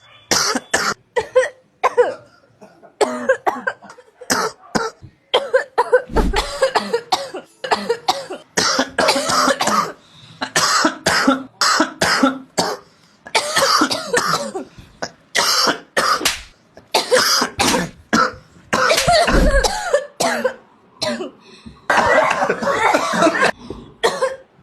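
People coughing over and over: short, harsh coughs come in quick runs of several at a time, with brief pauses between the fits.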